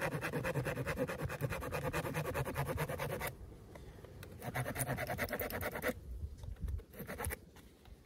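Leatherman Surge multitool saw, fitted with a fine-toothed Bosch wood jigsaw blade, cutting through a thin stick with rapid back-and-forth strokes. The strokes pause briefly a little before halfway, start again, and end in a few last strokes as the stick is cut through.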